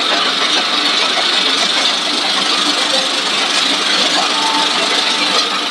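Machinery of a fried snack-cone production line running steadily: drive motors and conveyors make a constant hum with a steady hiss over it.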